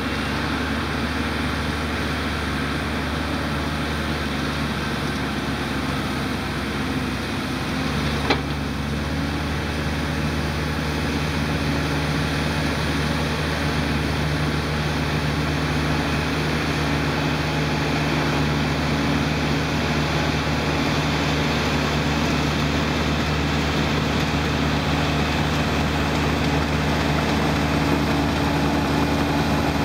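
Diesel engines of a Volvo EC210 excavator and a Komatsu D30 crawler dozer running steadily under working load while moving dirt, with a single sharp knock about eight seconds in. The engine sound grows slightly louder in the second half.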